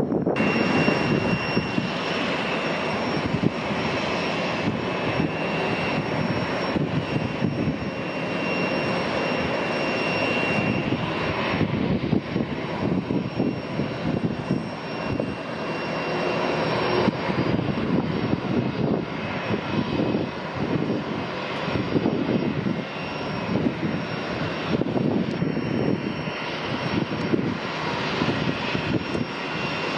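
Airbus A319 jet engines running with a steady high whine over their roar, with wind gusting on the microphone.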